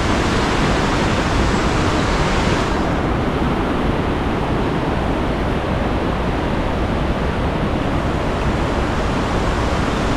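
Fast-flowing river water rushing steadily, a loud, even noise. The highest hiss drops away about two and a half seconds in.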